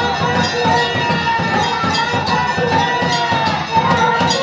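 A crowd of devotees shouting and chanting together over rapid clanging of brass temple bells.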